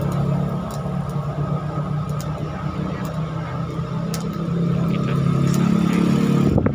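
Steady low motor hum that grows a little louder near the end, with a few faint clicks over it.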